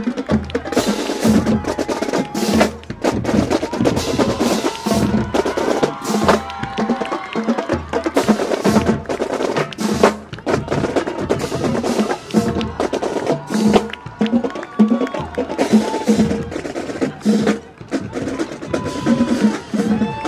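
Marching band drumline of snare, tenor and bass drums playing a steady marching cadence, with regular bass drum beats under rapid snare strikes and rolls.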